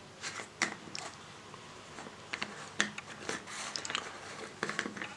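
Plastic screw cap of a portable USB juicer bottle being twisted off by hand: scattered small clicks and plastic scraping from the threads.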